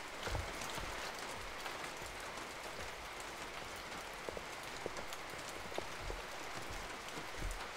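Footsteps on hard ground, a few scattered taps, over a steady even hiss of outdoor ambience.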